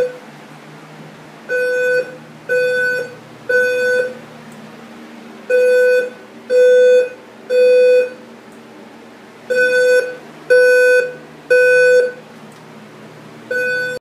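Fire alarm sounding the temporal-three evacuation pattern: three half-second low, buzzy beeps about a second apart, then a pause, with the cycle repeating every four seconds.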